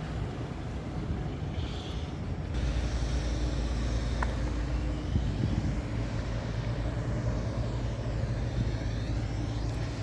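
Street traffic, with a motor vehicle's engine running close by; its low rumble grows louder about two and a half seconds in.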